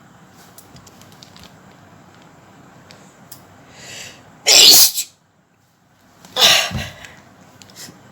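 A woman sneezing twice, about two seconds apart, loud and sharp, with a short in-breath before the first sneeze.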